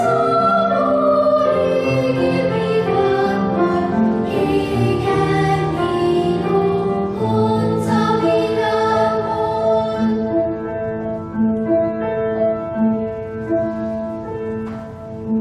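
Children's choir singing with piano accompaniment. The sound is full at first, then thins and grows quieter from about halfway through.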